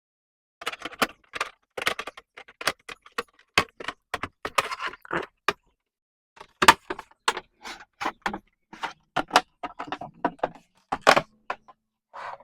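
Fast-forwarded sound of a PS4 console being reassembled by hand: rapid, irregular clicks and clatter of plastic casing parts and screws, broken up by abrupt silent gaps.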